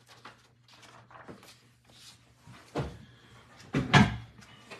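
A couple of dull knocks about a second apart, the second the louder, from things being handled and set down on a tabletop.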